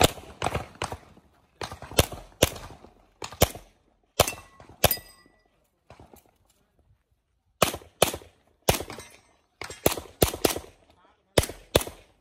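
Pistol shots fired rapidly in pairs and short strings during a practical shooting stage: a burst of shots, a pause of about two seconds as the shooter moves to a new position, then more quick pairs.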